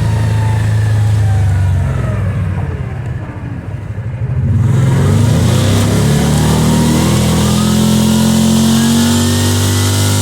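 ATV engine under way: the engine eases off and its pitch falls about two seconds in, then it accelerates again with a steadily rising pitch.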